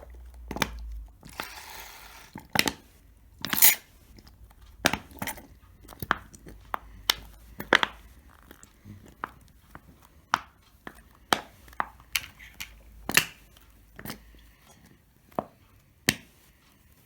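A plastic glue bottle of glue diluted with water being squeezed and handled as it is emptied into a bowl: irregular sharp plastic clicks and crackles, about one or two a second, with a short soft hiss at the start.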